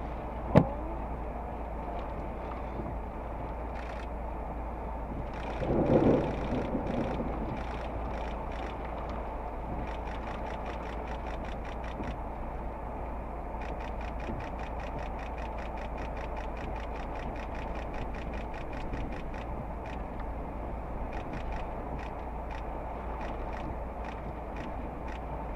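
Steady hum inside the cab of a stopped vehicle with its windshield wiper running. There is a sharp click about half a second in, a louder swish around six seconds in, and light, quick ticking through the second half.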